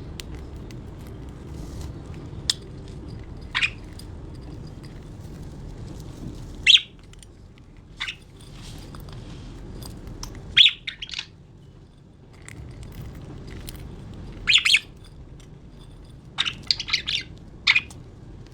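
Budgerigars giving short, sharp chirps and squawks, a dozen or so scattered calls, some in quick clusters near the end, over a steady low background hum.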